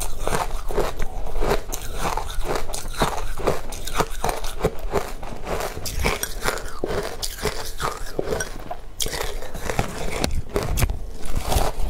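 Close-miked crunching and chewing of compacted shaved ice dusted with matcha powder, a rapid run of crisp crunches with a fresh bite into a slab near the end.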